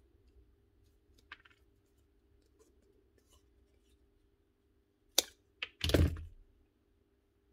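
Wire strippers working on a mains lead's wires: a faint click early, then two sharp snips a little past five seconds in. About a second later comes a heavier clunk and rattle as the strippers are set down on the bench.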